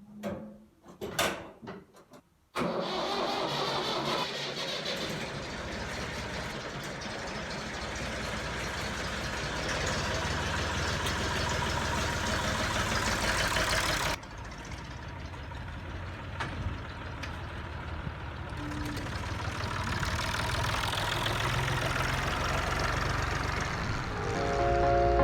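Farm tractor engine running steadily for scraping out the cow shed. It comes in suddenly after a few brief knocks, and drops abruptly in level about halfway through.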